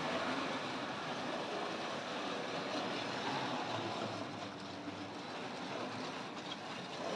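Tri-ang Jinty model tank locomotive running steadily along the track, its small electric motor and wheels making an even whirring rumble on the rails.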